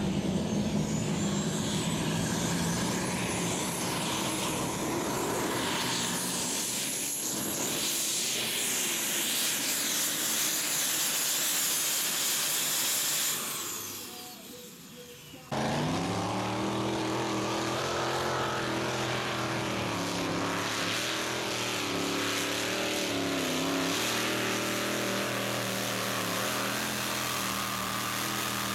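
Mini puller tractors' turbocharged racing engines at full throttle dragging a pulling sled. The first runs with a high whistle that climbs over the first few seconds and fades away about 13 seconds in. After a sudden cut a second mini puller's engine runs with a steady, slightly wavering note.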